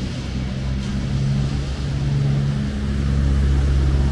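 A car driving past close by, its engine hum steady and growing louder toward the end.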